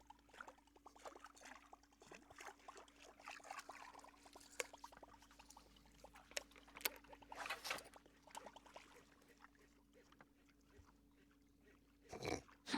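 Faint water splashing and lapping with scattered small clicks, over a steady low hum; a louder short splash-like burst comes near the end.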